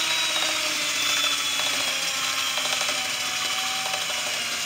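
Cordless drill running steadily, spinning a sandpaper-wrapped dowel inside the metal pump tube of a camp fuel fount. The motor's whine wavers slightly in pitch over the scraping of the sandpaper as it scours rust and crud from the pump bore.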